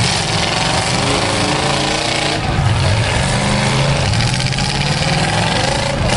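Several demolition derby cars' engines running and revving together, loud and continuous, with pitches rising and falling.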